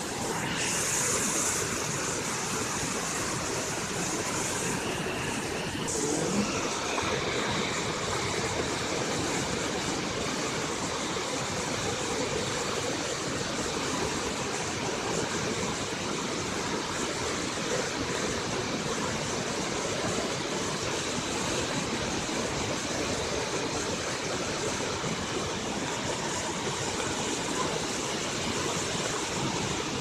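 Monsoon-swollen river in flood, brown floodwater rushing and churning in turbulent waves: a steady, unbroken rush of water.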